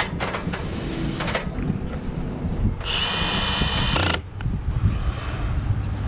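Cordless drill running in one steady, high whine of about a second as it works into the wood of a wooden squirrel house, with a few knocks of handling before it.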